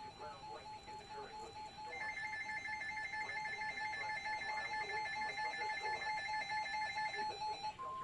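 Electronic alert tones, like a phone alert: a rapidly pulsing tone, joined for about five seconds in the middle by a higher pair of pulsed tones. Both stop just before the end.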